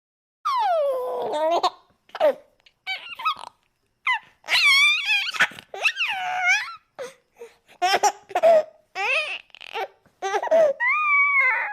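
Baby making happy sounds: a string of short, high-pitched squeals, laughs and babbles with brief pauses between them, starting about half a second in.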